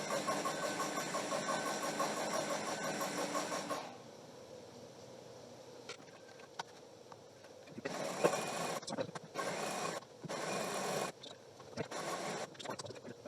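New Home heavy-duty sewing machine running at a steady, rapid, even rhythm, top-stitching fabric. It stops about four seconds in, and a few short, quieter bursts follow.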